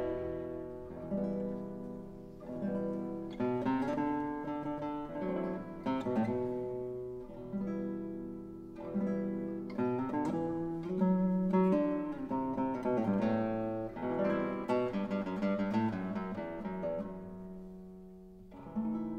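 Background music on acoustic guitar: plucked notes and chords, each struck sharply and left to ring out.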